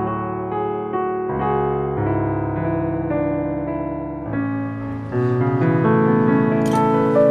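Soft electric-piano background music, chords changing every second or so. Near the end, a short scratchy hiss of a match being struck on its box.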